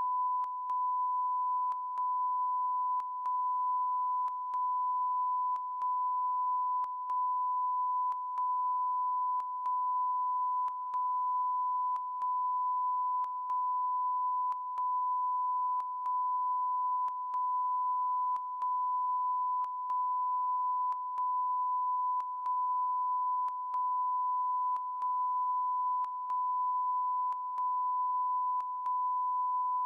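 Never-ending electronic beep: a steady 1 kHz tone that drops out briefly with a faint click about every 1.2 seconds.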